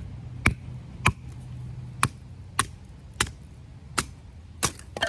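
A short wooden log used as a baton knocking on the spine of a Northern Knifeworks Badger, a small 3-inch-blade CruWear fixed-blade knife, driving it down through a stick to split it. About nine sharp knocks, roughly every half second.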